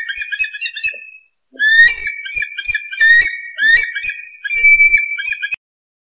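A series of high, whistled bird calls, each beginning with a quick swoop and then holding a steady note, repeating roughly once a second. The calls break off abruptly shortly before the end.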